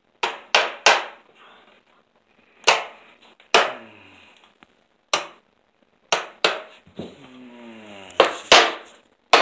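Sharp metal taps, about a dozen in irregular groups of two or three, some with a brief ring: a solid aluminum rod being tapped into place in an aluminum sliding-door track.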